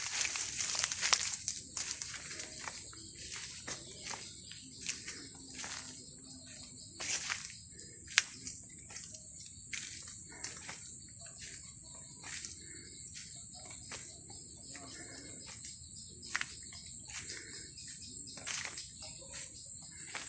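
Insect chorus: a continuous, steady, shrill high-pitched drone, with many short clicks and ticks scattered throughout.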